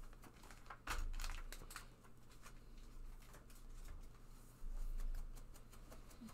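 Trading cards being handled and flipped through: light clicks and rustles, with low thuds about a second in and again near five seconds.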